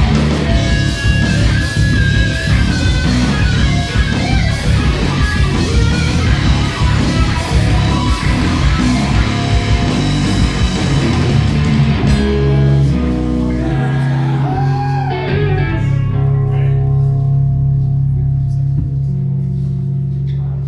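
Live heavy rock band playing loud, with distorted electric guitars and drums. About twelve seconds in the drums stop and the guitars ring out in a long, low, sustained chord, with one note bending up and down, fading slowly as the song ends.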